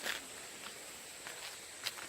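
Four footsteps on a rough path, about one every 0.6 s, the first and last sharpest, over the steady hiss of a valley stream.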